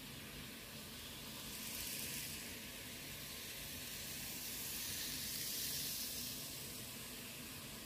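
N-scale model freight train running on Kato track, a faint hissing whir of its motor and wheels. It swells briefly about two seconds in and more strongly about five to six seconds in, as the train passes close by.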